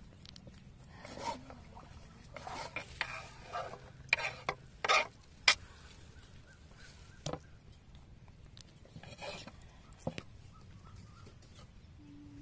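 Kitchen knife chopping boiled conch meat on a wooden chopping board: irregular knocks of the blade on the wood, coming thick in the first half, then a few single taps.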